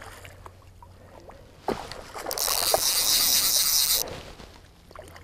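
Water splashing and sloshing for about two seconds, starting a couple of seconds in, over a low steady hum.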